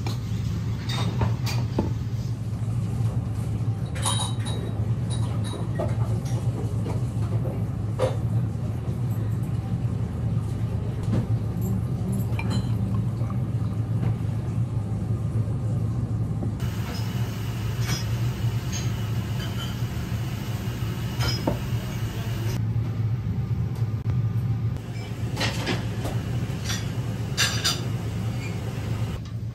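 Restaurant room noise: a steady low hum with scattered clinks of glasses and tableware.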